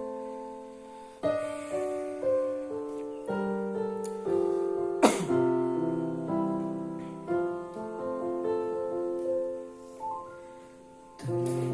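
Piano-voiced keyboard playing a slow intro of held chords, each struck and left to ring and die away, with one sharp hit about five seconds in.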